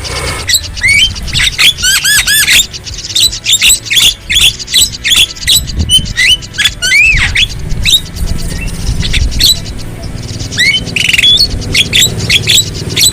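Javan myna (jalak kebo) calling and singing in a rapid, unbroken jumble of harsh squawks, clicks and short whistled notes that sweep up and down, over a steady low rumble.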